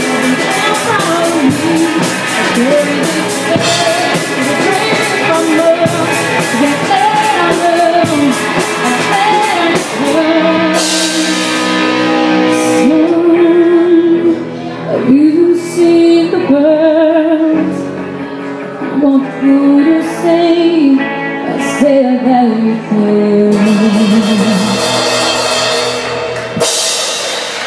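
Live rock band playing: a female lead vocal over electric guitar, bass and drum kit. About ten seconds in the full drumming drops away and the voice carries on over sparse accompaniment with scattered cymbal crashes, and the cymbals build up again near the end.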